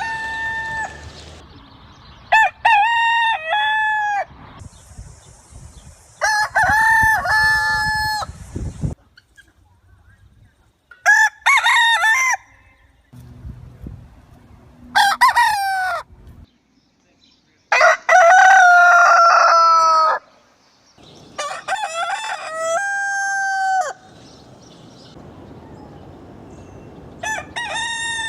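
A string of rooster crows from different recordings, one after another, about seven in all. Each is a loud cock-a-doodle-doo of one to two and a half seconds, and the background noise changes from one recording to the next.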